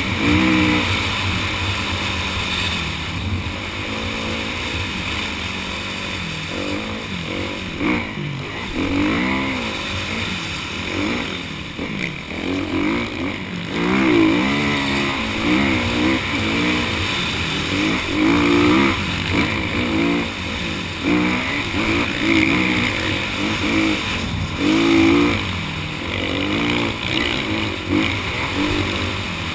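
Kawasaki KX450F dirt bike's single-cylinder four-stroke engine, heard from on the bike, revving up and falling back again and again as it is ridden hard through sand.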